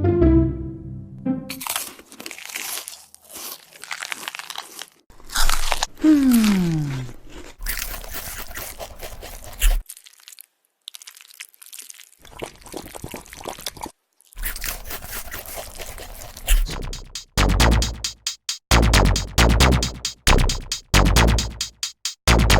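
Intro to a rap music track: noisy sound-effect hits and a single falling pitched glide, then a heavy beat with deep, regular bass pulses that starts about three-quarters of the way through.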